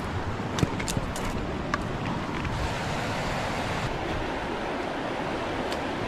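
Steady rushing of a river's flowing water, with a few sharp clicks in the first two seconds and one more near the end.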